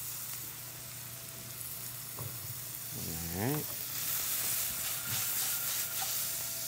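Celery and onions sautéing in a frying pan, a steady sizzle that gets louder about four seconds in. Early on, a spatula stirs ingredients in a stainless steel mixing bowl.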